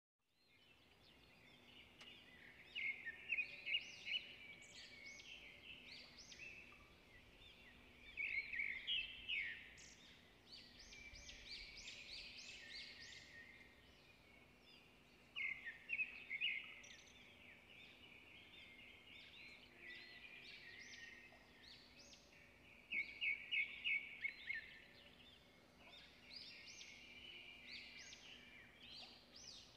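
Birds chirping in bursts of quick, high calls every few seconds, over a faint steady hum.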